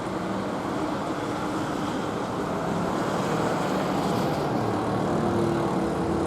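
A motor vehicle engine running amid steady road and wind noise, slowly growing louder.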